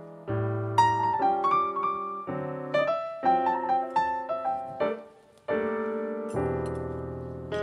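Background piano music: a melody of struck notes that fade after each strike, with a short pause about five seconds in.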